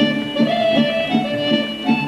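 Live folk dance music from a small band of accordions and strings: a held, running melody over a steady, even beat.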